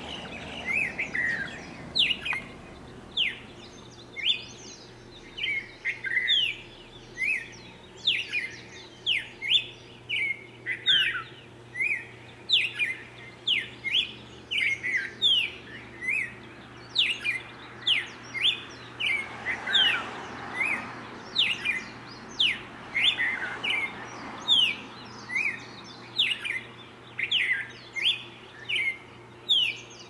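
A bird calling over and over in a steady series of short, sharp notes that fall in pitch, about one or two a second.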